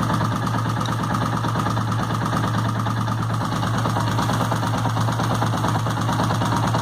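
Suzuki motorcycle engine idling steadily with a rapid ticking noise from the top end of the engine, which the mechanic takes for probably a valve or the camshaft.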